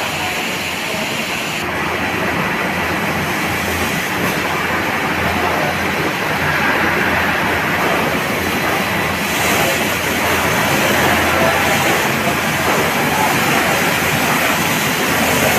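Snack frying production line running: a steady, even machinery noise from the fryer and its conveyors, with no distinct knocks or rhythm.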